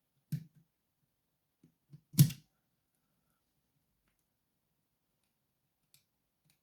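Two sharp knocks from handling a padlock during disassembly, about two seconds apart, the second louder. Faint taps in between.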